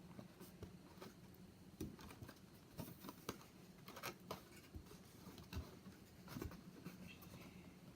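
Faint scattered taps, clicks and light scraping of cardstock paper pieces being handled and pressed together while gluing, over a faint steady hum.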